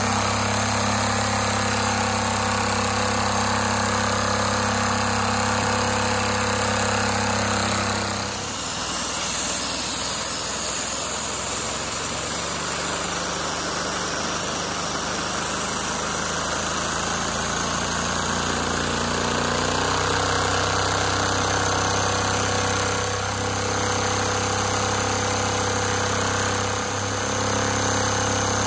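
LEGO V-twin vacuum engine running steadily, its plastic pistons and linkages making a fast, continuous mechanical rattle over a low hum. The hum drops out about eight seconds in and returns around twenty seconds.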